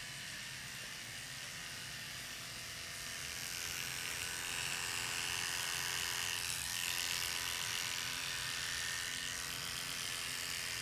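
Electric hair clippers buzzing steadily while clipping the hair of the scalp's donor region, growing louder about four seconds in as they work through the hair.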